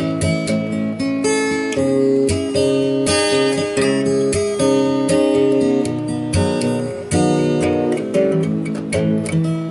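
Inexpensive acoustic guitar played with a mix of strummed chords and picked notes.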